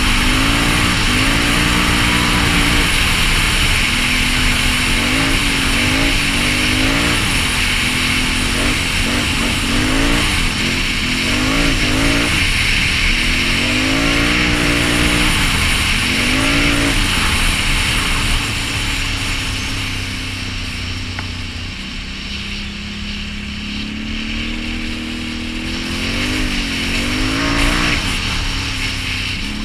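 2016 Can-Am Renegade 850 ATV's V-twin engine with a Yoshimura exhaust, revving up and down again and again as it is ridden fast. About two-thirds of the way through it settles to a lower, quieter, steadier note, then revs up again near the end.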